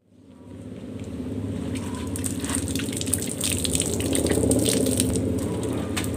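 Water running from an outdoor tap and splashing onto the ground, with scattered crackling clicks; it fades in over the first second.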